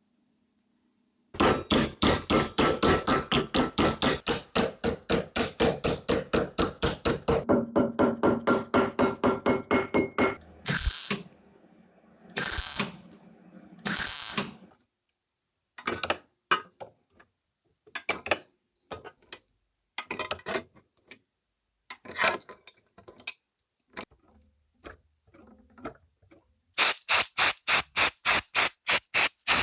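Hand tool working metal: a long run of fast, even strokes at about four a second, then a string of scattered single strokes, and another quick run of strokes near the end.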